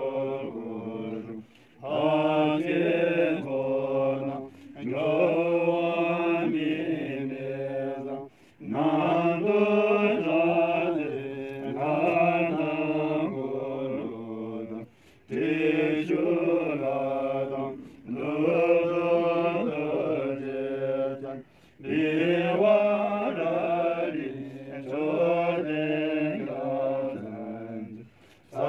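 Several Drukpa Buddhist monks chanting a Tibetan prayer in unison, a melodic recitation in phrases of a few seconds each, broken by short pauses for breath.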